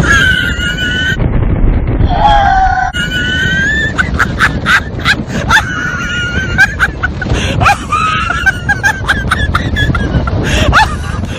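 Heavy wind buffeting the microphone, with a person's shrill, squealing cries that hold, slide and break off again and again.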